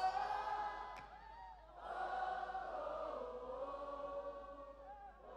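Large concert crowd singing a gospel worship song together with voices only, the band dropped out, holding long notes. The singing thins about a second in, then swells again.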